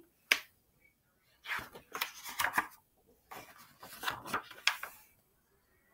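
Paper pages of a picture book being turned and pressed flat by hand: a short tap, then two spells of rustling and sliding paper.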